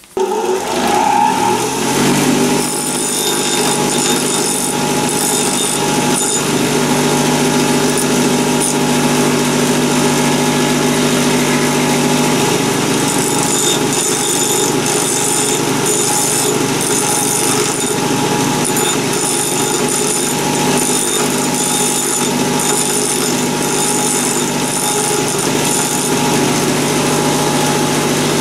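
Ferm bench grinder switched on, its motor rising to speed over about two seconds and then running steadily. An Allen key tip, turned in a keyless chuck against the wheel face, is ground to a cone point, giving a hiss of grinding that comes and goes in spells.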